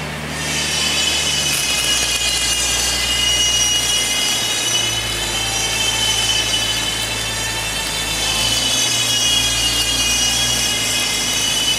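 MIG welding arc crackling steadily through a horizontal fillet weld, starting about a second in. Under it runs the steady high-pitched whine of a high-vacuum on-torch fume extraction unit drawing fume off the torch.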